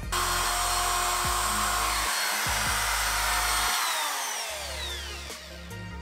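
Electric router routing out a wooden door jamb for a thicker strike plate. It starts abruptly and runs at a steady high pitch, then winds down in a falling whine after it is switched off, over the last two seconds.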